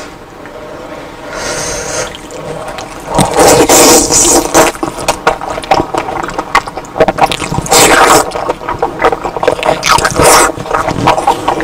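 Close-miked eating sounds: loud wet chewing and slurping in repeated bursts, the first starting about three seconds in.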